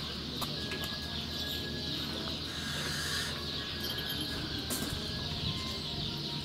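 Short bird chirps over a steady high hiss, with a few faint clicks.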